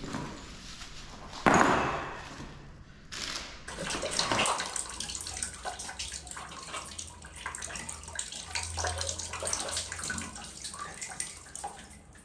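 Packaging rustling as shower fittings are unpacked, with a loud sudden rip about one and a half seconds in. Then a run of small scrapes and clicks over a steady hiss as hand work goes on at a tiled shower wall.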